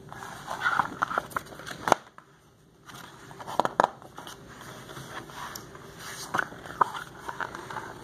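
Pages of a picture book being turned and handled: paper rustling with scattered clicks and taps, and a short quiet spell about two seconds in.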